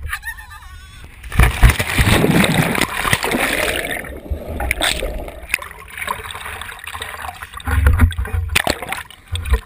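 A person jumping from a bridge hits the water feet-first about a second and a half in with a loud splash. Then comes a churning, bubbling rush heard from underwater that slowly dies down, and renewed splashing near the end as he breaks the surface.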